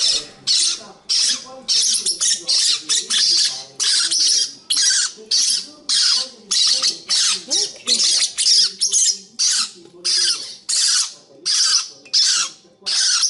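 A flock of parrotlets giving harsh, rasping begging calls, about two a second without a break, as they crowd a spoon of food with their beaks open.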